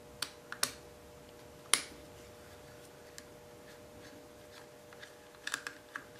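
Sharp metal clicks and taps of a T-handle hex key working a screw out of a dual-action air sander's housing: a few scattered ticks, the loudest about two seconds in, and a quick cluster near the end.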